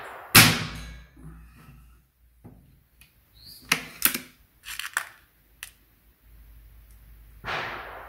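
A 4.5 mm Artemis Black Hawk spring-piston air rifle, tuned, fires once just after the start: a sharp shot that dies away within about half a second. A few seconds later come several quick metallic clicks and clacks as the rifle is cocked and reloaded.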